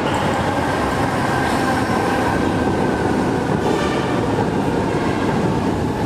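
Metro train running: a steady, continuous running noise with a faint high whine over it.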